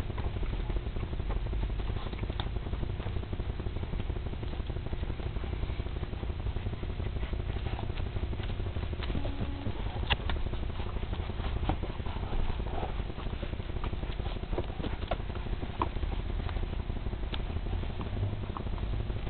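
Puppies suckling at their mother's teats: scattered small wet clicks and smacks with rustling in the straw, over a steady low rumble.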